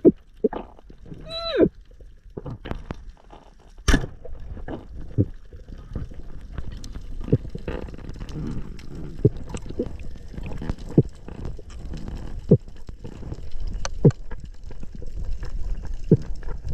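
Underwater camera audio: irregular sharp clicks and knocks over a low rumble of moving water. A short pitched sound rises and falls about a second and a half in.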